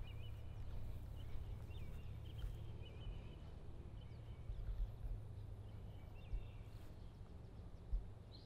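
Scattered small bird chirps over a steady low rumble, with a few soft low thumps.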